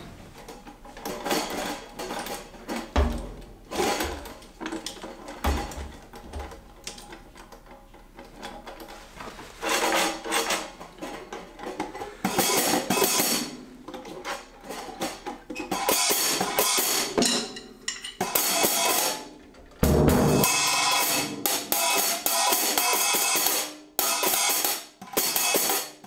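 Drum kit, a cheap Ludwig set, being tried out: scattered hits on the hi-hat and cymbals with a few low drum thumps, building from about ten seconds in into busier stretches of hi-hat and cymbal playing with short breaks between them.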